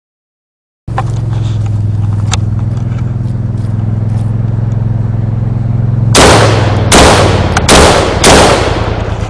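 Four short bursts of fully automatic machine-gun fire, each about half a second long, starting about two-thirds of the way in. Under them runs a steady low hum.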